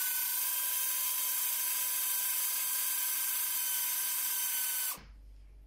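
Electric blender running steadily as it mixes pancake batter (flour, egg, milk), a steady whine over a whirring noise, then cutting off abruptly about five seconds in.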